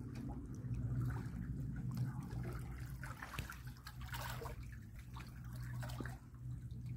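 Small waves lapping and trickling against shoreline rocks, with little splashes and drips, over a steady low hum.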